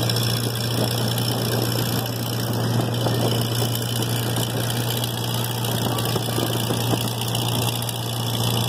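Boat engine running steadily, a constant low drone with an even rushing noise over it.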